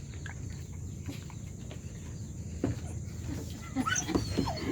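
A steady low background hum, then several short, quick animal cries sliding in pitch near the end.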